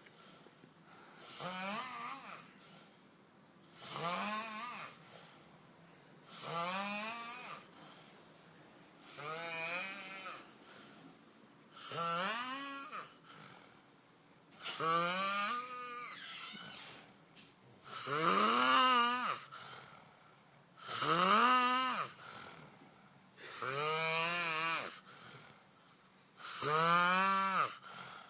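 A sleeping man snoring loudly and regularly, about ten snores in a row roughly every two and a half to three seconds, each a rattling, pitched snore that rises in pitch, the snores louder in the second half.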